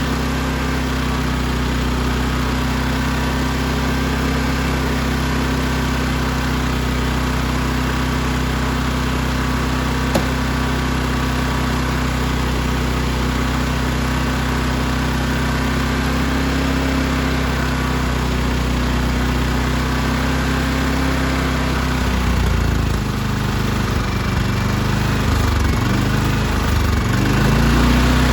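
Firman inverter generator's small engine running steadily on choke. About 22 seconds in, its speed wavers up and down for several seconds, then settles at a slightly higher, louder pitch. It runs only with the choke on, the sign of a carburetor that needs cleaning.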